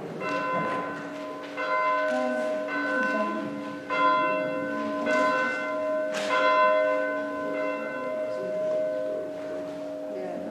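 Church bell strokes, struck about once a second, each ringing on and overlapping the next, as a call to worship.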